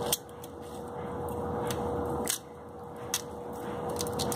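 Curly kale leaves rustling and scraping against a small plastic greens stripper (Chef'n Vibe) as the stem is pulled through its hole, in two slow, drawn-out pulls with a few light clicks. The leaves bunch up and drag, so the stripping goes with a struggle.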